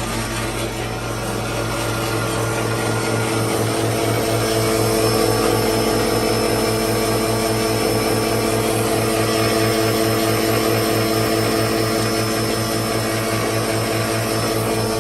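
Roll-to-sheet paper cutter machine running steadily: a constant mechanical hum with several steady tones over a fast, even pulsing beat. It swells a little in level a couple of seconds in.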